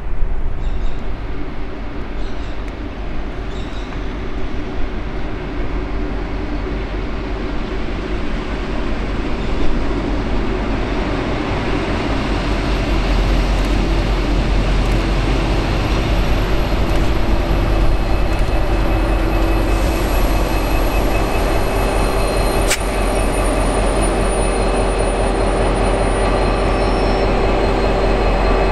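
V/Line N class diesel-electric locomotive, with an EMD 12-645 two-stroke V12, running as it hauls a passenger train in, along with the rumble of the train on the rails. The steady drone grows louder from about halfway through as the locomotive draws near.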